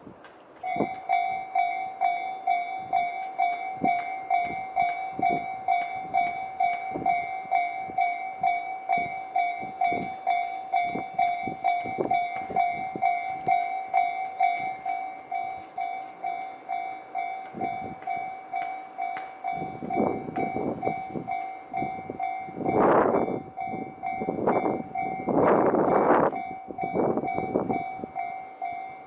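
Japanese level-crossing warning bell starting up under a second in, an electronic ding repeating about twice a second. From about 20 seconds a train passes over the crossing, its noise rising and falling in several loud waves over the bell.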